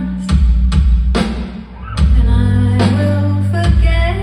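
Live band music heard from the audience: regular drum hits over a deep bass line, with a woman singing. The sound dips briefly about a second and a half in.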